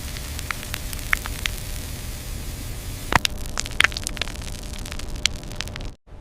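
Factory ambience: a steady low machinery rumble with scattered sharp clicks and clinks, the loudest a little past halfway. The sound drops out for a moment near the end.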